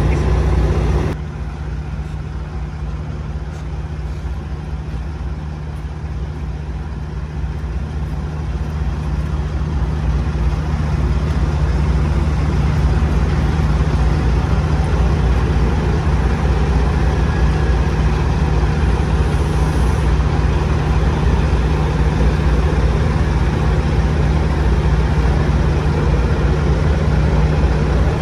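Heavy diesel truck engine idling steadily with a deep, even hum. It drops back a little about a second in and builds up again over the following ten seconds.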